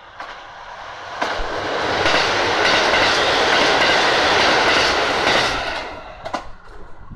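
KiHa 182/183 series diesel limited express train running through the station at high speed on the main track. A rush of wheel and engine noise swells about a second in, holds loud for a few seconds as the cars go by close at hand, then fades, with a few sharp clacks near the end.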